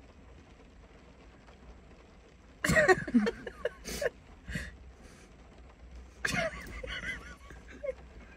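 A person coughing and spluttering in short bouts: a loud bout about three seconds in and a weaker one around six seconds in.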